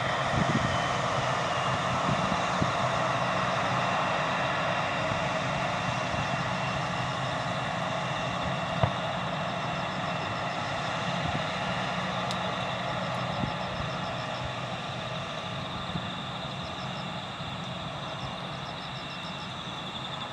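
Embraer E175 jet's twin GE CF34-8E turbofan engines running at taxi power with a steady whine, slowly fading as the jet taxis away.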